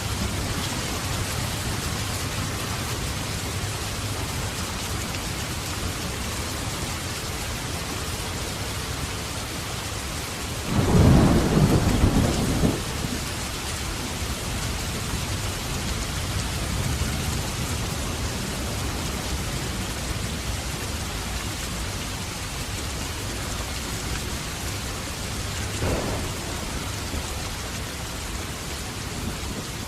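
Heavy rain falling steadily, with a loud thunderclap rumbling for about two seconds some eleven seconds in, and a shorter, fainter rumble of thunder near the end.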